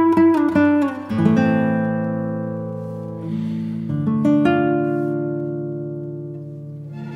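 Background music on acoustic guitar: a quick run of plucked notes, then strummed chords left ringing and slowly fading, with a new chord struck about four seconds in.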